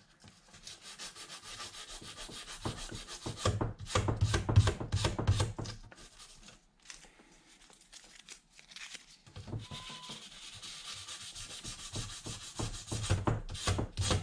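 Sandpaper rubbed by hand in quick back-and-forth strokes over the painted body of an RC scale truck, wearing through the paint to make it look old and scratched. The sanding stops for a few seconds around the middle, then starts again.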